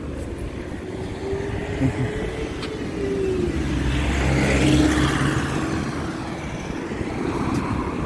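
A car driving past on the road, its engine and tyre noise swelling to a peak about halfway through and then fading.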